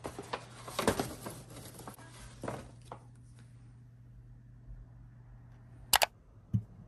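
Kraft paper bag crinkling and rustling as hands handle it, with many small sharp crackles over the first three seconds. After a quiet stretch, a brief sharp crinkle comes about six seconds in.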